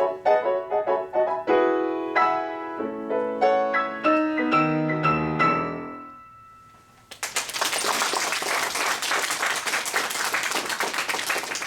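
Solo piano playing the final bars of a fast sonata movement: a run of chords sinks to a low bass note that rings and fades. About a second later an audience breaks into applause.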